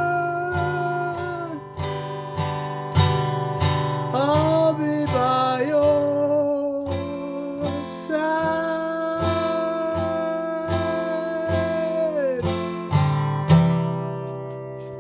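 Music: acoustic guitar strumming a steady rhythm under long held melody notes that bend into pitch. It ends on a final strummed chord that rings out and fades near the end.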